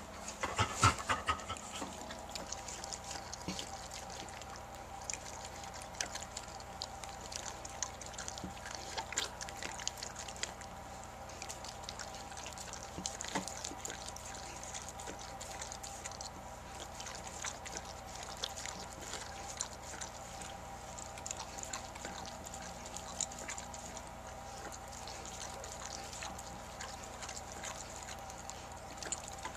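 German Shepherd mother panting and licking her newborn puppy during whelping: a steady run of small wet licking and slurping clicks, with a louder flurry about a second in, over a faint steady hum.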